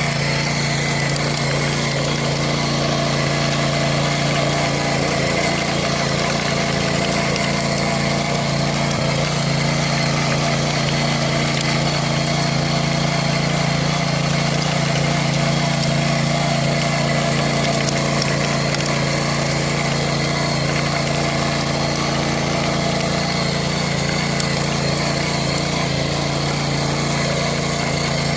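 Antrac GX200 rotary tiller's single-cylinder petrol engine running steadily at an even speed, with no change in pitch or load.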